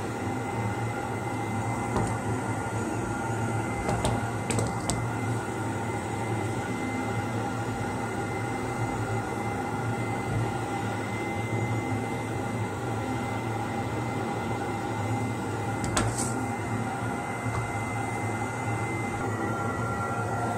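Steady mechanical hum of a machine running, with a few light clicks from handling, about four seconds in and again near sixteen seconds.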